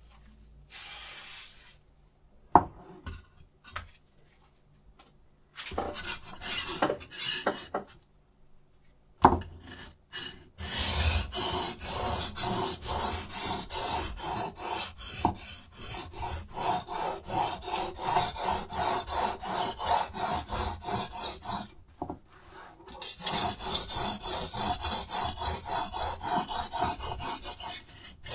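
Diamond sharpening stone on a Hapstone T1 guided sharpener rasping in quick, even back-and-forth strokes along the steel edge of a clamped chef's knife. A couple of sharp knocks come early, before the strokes start. There is a short break near the end, then the strokes resume.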